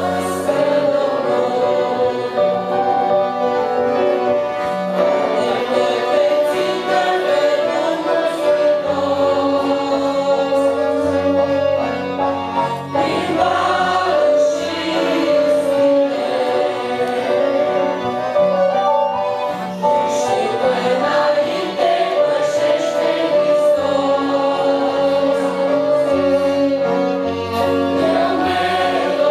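An old Christian hymn sung by young women's voices over piano accordion chords and bass, with a violin playing along.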